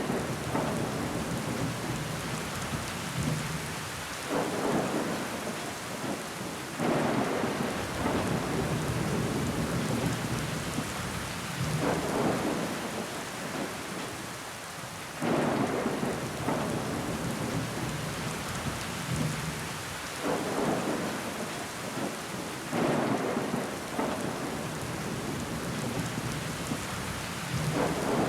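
Steady rain pattering against window glass, with water running down it. Louder swells rise and fade every few seconds.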